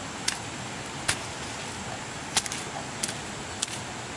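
About six short, sharp clicks or snaps at uneven intervals, two close together in the middle, over a steady background hiss.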